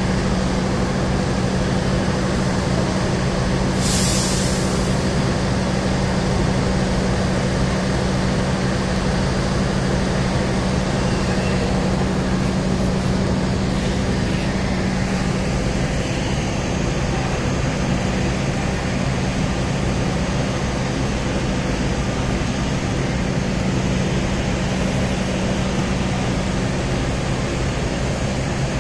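Steady low drone of a standing diesel passenger train's engines at a station platform. About four seconds in there is a short, sharp hiss of compressed air, like an air-brake release.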